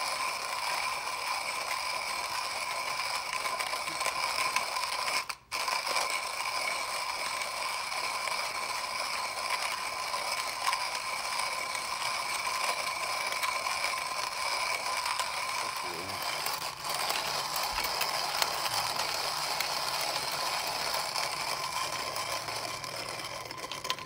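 Comandante hand coffee grinder being cranked, its conical burrs crunching and grinding whole coffee beans in a continuous rasping stream with a brief break about five seconds in. The grinding eases near the end as the last beans pass through the burrs.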